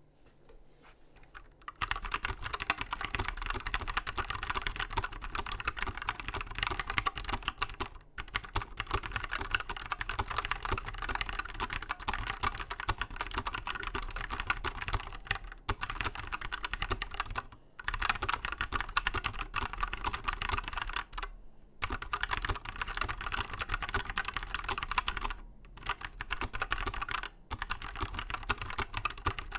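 Fast, continuous typing on a custom-built mechanical keyboard: a dense run of key clacks starting about two seconds in, broken by several short pauses.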